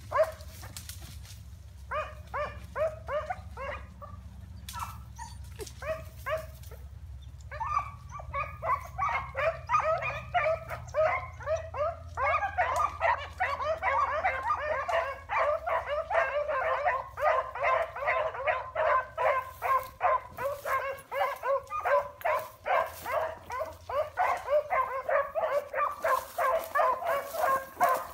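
A pack of rabbit hounds baying on a running rabbit's track. A few short bursts of calls come first, then from about eight seconds in many dogs give voice together in a continuous, overlapping chorus.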